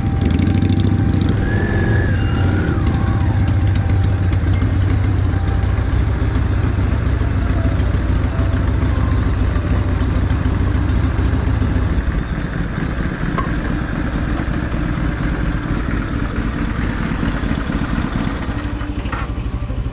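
Motorcycle engine running, with a steady low drone that drops away about twelve seconds in.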